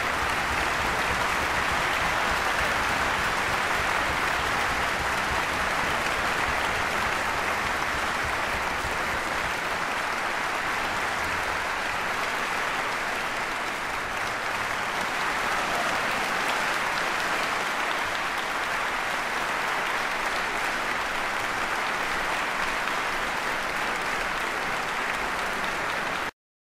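Audience applauding steadily, cut off abruptly near the end where the recording stops.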